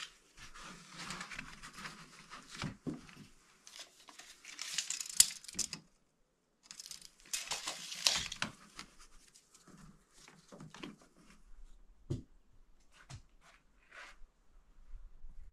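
Rock wool insulation being cut and torn with a knife and pressed in around an electrical box: scratchy tearing and rustling strokes in two spells, then scattered light knocks and rustles.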